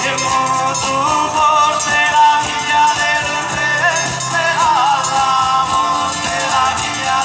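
Live southern Italian folk band playing an instrumental passage: accordion and acoustic guitars with a wavering melody line over jingling hand percussion.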